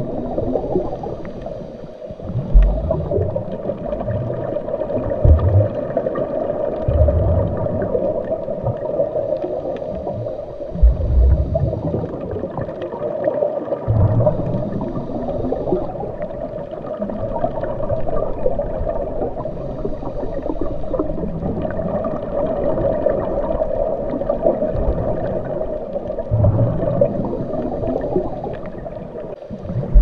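Underwater ambience recorded with the camera: a steady wash of water noise with irregular low bubbling and gurgling swells.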